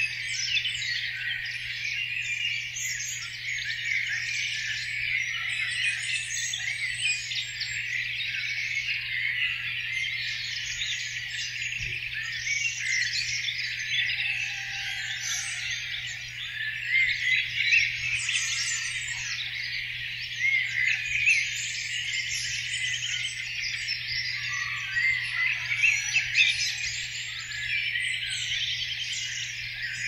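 Spring dawn chorus of many songbirds singing at once, a dense overlapping mass of high chirps, trills and warbles with no single bird standing out.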